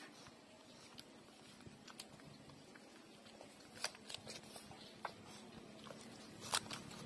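Puppies suckling at their mother's teats: faint, scattered sharp smacking clicks, the loudest about six and a half seconds in, over a low steady background hum.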